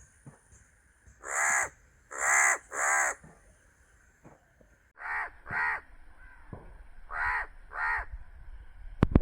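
Crow cawing: three harsh caws in quick succession, then two pairs of caws a couple of seconds apart. A sharp click sounds near the end.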